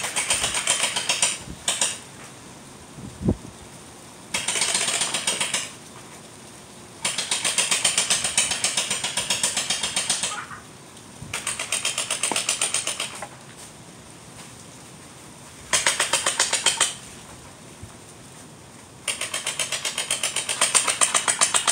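Battery-powered electric gel ball blaster (Orbeez gun) firing on full auto: about seven bursts of a fast mechanical rattle, each one to three seconds long, with short gaps between. A single low thump comes about three seconds in.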